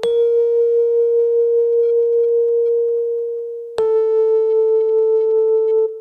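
A held pitched tone with a slight waver. It sounds once for nearly four seconds, fading a little, then cuts to a second, slightly lower held tone that stops just before the end.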